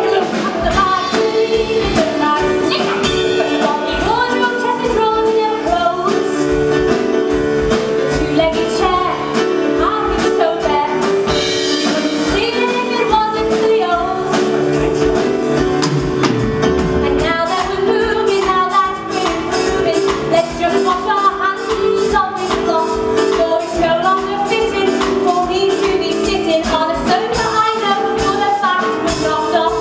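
A woman singing a musical-theatre song over instrumental accompaniment with a steady beat.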